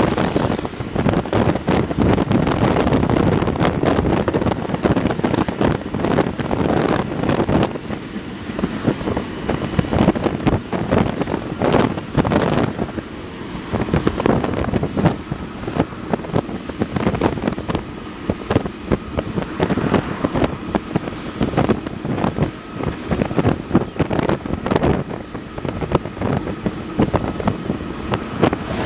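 Heavy wind buffeting the microphone while moving at speed alongside a KAI CC 206 diesel locomotive, in irregular gusts over a steady running rumble.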